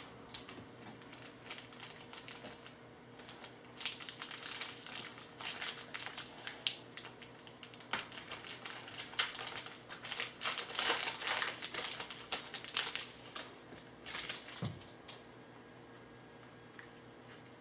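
Trading-card pack wrapper being crinkled and torn open, with the cards inside handled: a run of crackling rustles from about four seconds in to near the end.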